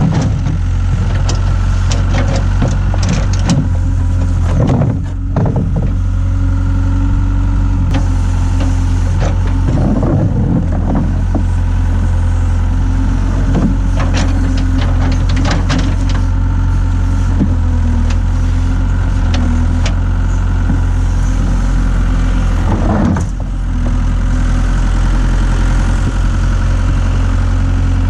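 Hitachi hydraulic excavator's diesel engine running steadily, with bursts of clanking and rattling from the machine at work several times.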